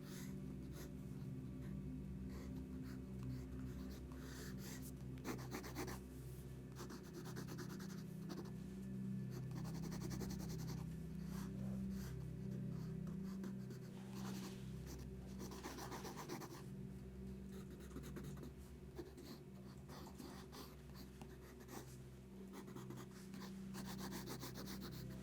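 Sketching strokes scratching on paper, irregular and of varying length, some short and quick, some long and drawn out, over a steady low hum.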